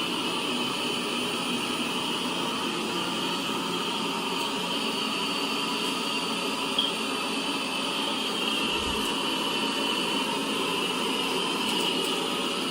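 Lefant M3 robot vacuum running a cleaning pass, its suction fan giving a steady whir with a high whine, as it vacuums up powder on the floor. A brief click about seven seconds in.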